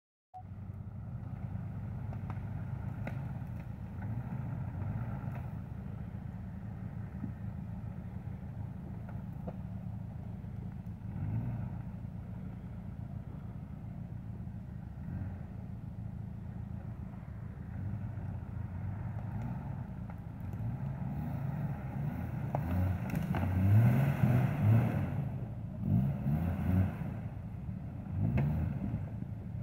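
Jeep Grand Cherokee ZJ's engine pulling through deep mud ruts. It runs steadily at first, then from about two-thirds of the way through it revs up and down again and again, louder, as the vehicle works through the mud.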